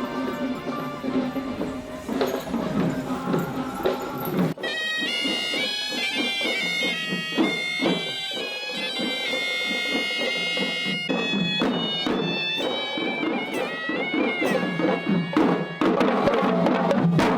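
Traditional Sri Lankan procession music: a shrill reed pipe plays a wavering, ornamented melody over drumming. The pipe comes in abruptly about four and a half seconds in, and the music swells louder near the end.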